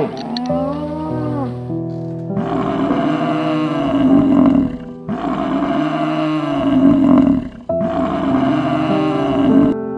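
Three loud, rough roaring calls from a large mammal, each about two seconds long and cut off abruptly, with a shorter wavering call in the first two seconds. Soft piano music plays underneath.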